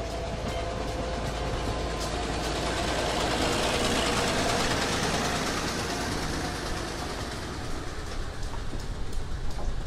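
Small diesel switcher locomotive running as it rolls past with a flatcar and caboose in tow, the engine and wheel noise loudest about four seconds in. Near the end the railcar wheels click over the rail joints.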